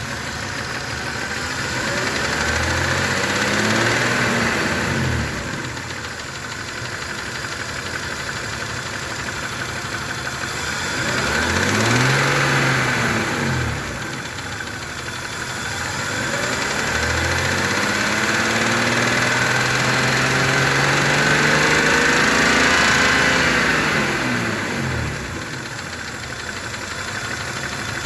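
Hot BMW M52/M54-family straight-six idling and revved up and back down three times, the third rev held longer, with a knock that only shows once the engine is warm. The owner doubts it is a rod knock and links it to a drop in compression in one cylinder.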